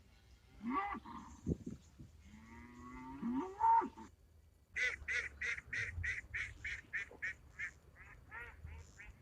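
Farm animal calls: cattle lowing, a short call and then a longer one rising in pitch, followed by a goose honking in a quick, even run of about a dozen honks.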